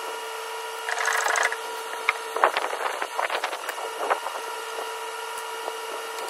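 Scattered light clicks and knocks of gloved hands and a tool working at a car's steering rack and rag joint from underneath, with a brief scratchy rustle about a second in and a flurry of clicks in the middle. A faint steady hum runs underneath.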